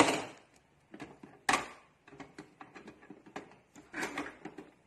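Plastic clicks, knocks and rattles from hands and a tool working inside an open inkjet printer, with sharp knocks at the start, about a second and a half in and around four seconds in.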